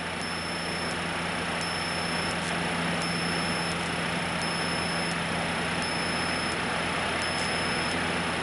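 Cessna 152's four-cylinder engine and propeller droning steadily, heard inside the cabin. Faint high ticks recur about every two-thirds of a second.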